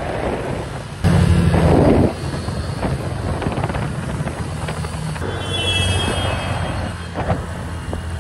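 Quad bike (ATV) engines running as they ride over grass, a steady low drone with a much louder surge for about a second, starting about a second in.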